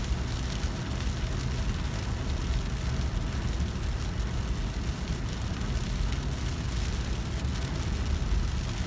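Car driving through rain on a wet road, heard from inside the cabin: steady road and tyre rumble with rain hissing on the windshield.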